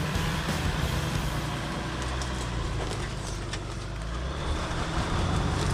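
Jeep Wrangler crawling slowly over rock on a forest trail, its engine running low and steady, with a few sharp clicks and cracks from the ground under the tires.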